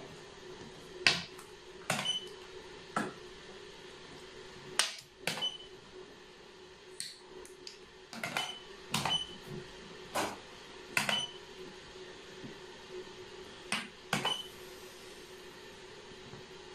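Xiangqi pieces clacking down onto the board as moves are played: about a dozen sharp clicks at uneven intervals, several with a brief high ring, over a faint steady hum.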